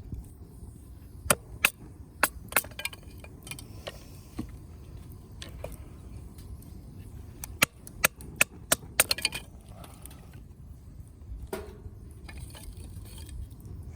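Firewood burning in a fire pit, crackling with sharp pops, some single and several in a quick cluster just past the middle, over a low steady rumble.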